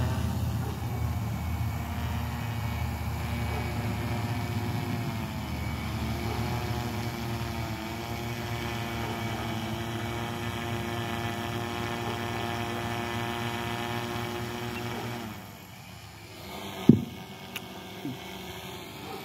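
Arris M900 quadcopter's propellers and motors humming as it hovers with a slung payload, the pitch wavering as the motors adjust. About fifteen seconds in the hum drops away sharply, and a single loud knock follows about two seconds later.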